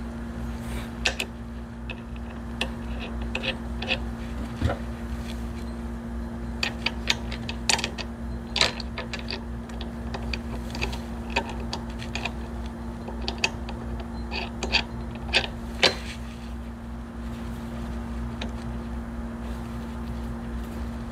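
Scattered light clicks and taps of small steel parts handled by hand, as pillow-block bearing bolts and the bearing are shifted on a steel locomotive truck frame, most of them in the middle stretch. A steady low hum runs underneath.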